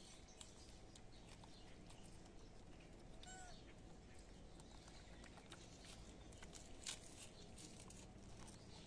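Near silence: a faint steady background with scattered small clicks and one short, faint chirp-like call about three seconds in.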